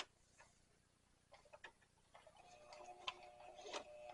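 Small sewing machine starting to stitch through leather and Velcro, faint: a click, a few light ticks, then from about two seconds in a low motor hum with ticking needle strokes as it slowly gets going.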